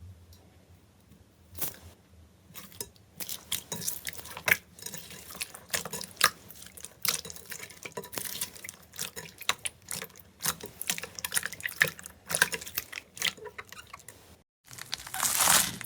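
Slime being squished and worked by hand, giving a run of wet, sticky clicks and pops. Near the end it cuts to a louder, denser crackling.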